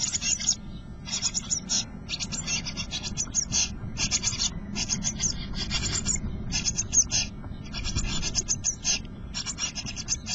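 Blue tit nestlings begging in the nest box: bursts of rapid high-pitched calls, each about half a second long, coming about once a second. Under them runs scratching and rustling as the adult and the chicks shift on the nest material against the wooden box.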